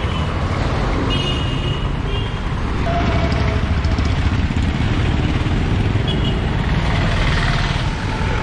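Road traffic passing close by: cars, motorcycles and a light truck, a steady rumble of engines and tyres.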